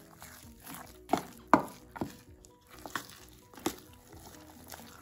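Sticky mostaccioli dough being mixed by hand in a stainless-steel bowl, with a handful of sharp knocks against the metal bowl that ring briefly, the loudest about one and a half seconds in.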